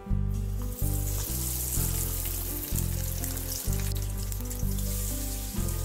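A banana-flower vada (Bengal gram and banana-flower batter) sizzling in hot oil in a kadai, the hiss starting the moment the patty goes into the oil and staying strong. Background music with a steady bass line plays underneath.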